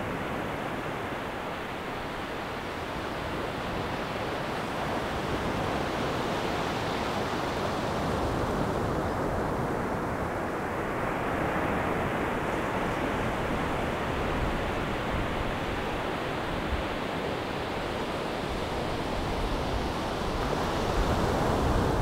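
Sea surf breaking and washing up a flat sandy beach: a steady rushing that slowly swells and eases as the waves come in. Wind buffets the microphone with a low rumble underneath.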